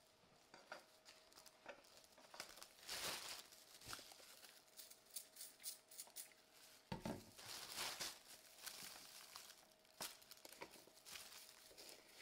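Faint crinkling of a plastic bag and light clicks and taps of plastic food containers being handled while frozen food is portioned out, over a faint steady hum.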